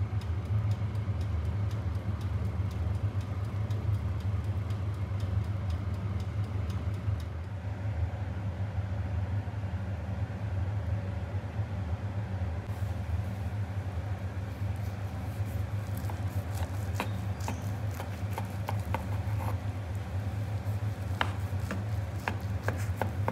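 Steady low machine hum. In the last few seconds, a scatter of small clicks and crunches as a knife cuts down through a loaf cake's crust and chopped-nut topping.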